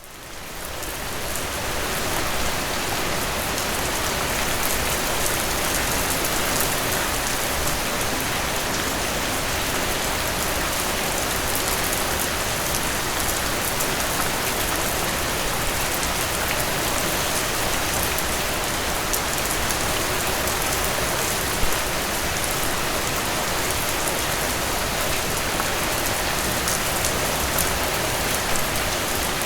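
Steady rain falling and splashing on surfaces, fading in over the first couple of seconds and then holding even, with one brief louder click about two-thirds of the way through.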